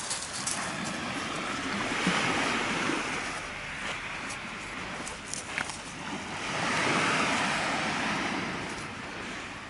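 Small waves breaking and washing up a pebble shore, the surf swelling twice about four to five seconds apart, with a few light clicks.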